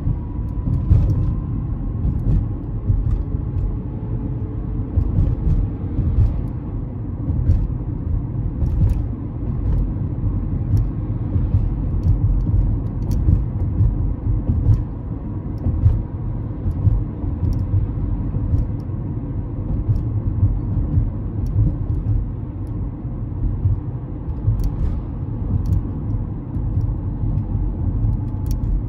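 Honda CR-V driving, heard from inside the cabin: a steady low road and engine rumble, with faint scattered ticks.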